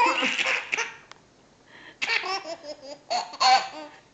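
Baby boy laughing: a burst of laughter, a short pause about a second in, then another run of choppy, pulsing laughs.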